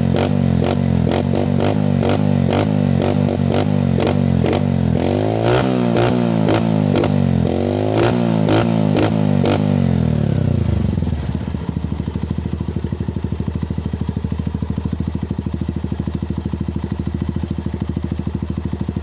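Honda TMX's single-cylinder four-stroke engine running through an open bullet-pipe muffler. It is blipped quickly again and again, then revved up and down several times, and drops to a steady idle about eleven seconds in.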